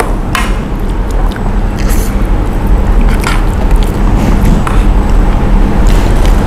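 A person eating curry rice with deep-fried pork cutlet, biting and chewing, with a few short sharp clicks over a steady background hum.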